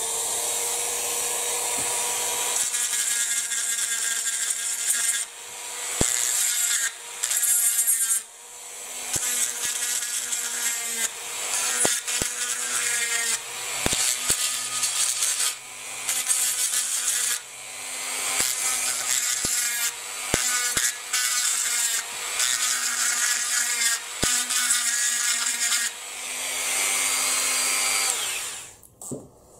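Dremel rotary tool running steadily, its bit grinding off the small mounting tabs behind the headlights and grilles of a diecast model car body. The grinding comes in repeated short passes as the bit is pressed in and lifted, with a few sharp clicks, and the tool switches off near the end.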